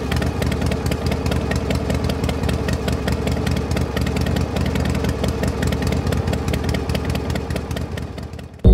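Small motor of a toy model engine running, belt-driving a miniature flour mill, with a steady hum and a fast, even clatter. It dies away near the end.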